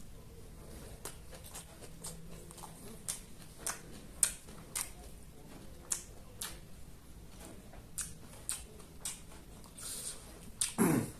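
Close-miked eating: a person chewing with irregular wet mouth clicks and lip smacks, one or two a second, with a louder, lower sound near the end.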